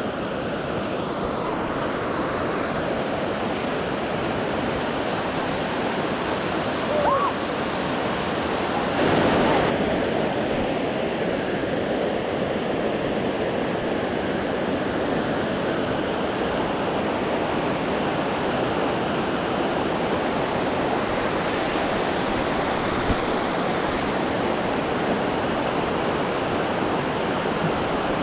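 Steady rush of Bridal Veil Falls, water sliding and pouring down the rock into the pool, an even roar of falling water throughout.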